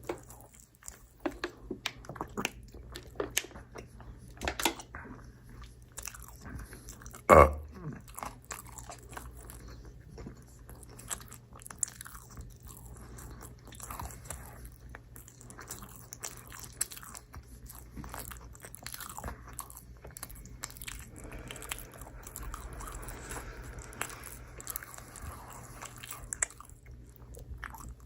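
Close-miked eating of pizza: biting and chewing, with many short, sharp sounds throughout and one loud knock about seven seconds in.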